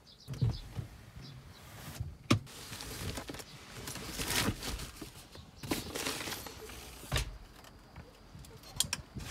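Camping gear being shifted around in the back of an SUV: a cardboard box pushed along and folding aluminium chair frames knocking, with scattered knocks and thumps, the sharpest about two seconds in and a heavier one near seven seconds, between rustling.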